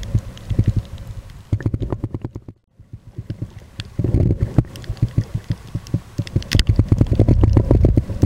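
Muffled underwater rumbling and crackling picked up by a point-and-shoot camera sealed in a plastic waterproof bag, as water and the bag shift against the microphone. It cuts out briefly just under three seconds in, then carries on.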